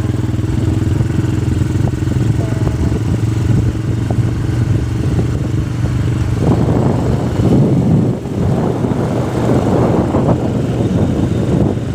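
Motorcycle engine running steadily on the move, with a rougher, noisier rush joining it from about six seconds in.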